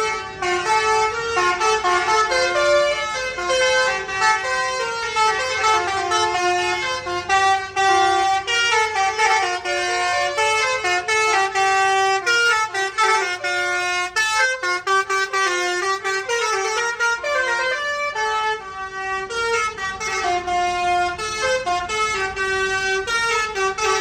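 Basuri telolet bus horn playing a long tune: several horn tones sound together and change pitch in quick melodic steps, with no pause.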